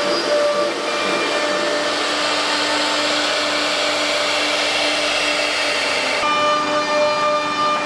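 CNC panel router at work: a steady rushing machine noise with whining tones that shift in pitch. About six seconds in, the hiss thins out and a set of steadier whining tones takes over.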